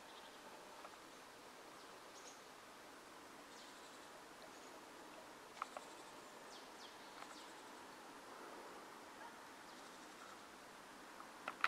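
Quiet open-air ambience: a faint steady hiss with a few faint, short bird chirps scattered through it, and two soft clicks a little past halfway.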